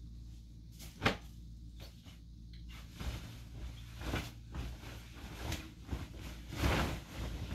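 A bedsheet being shaken out and spread over a bed: a sharp flap about a second in, then a run of rustling swishes, the loudest near the end, over a steady low hum.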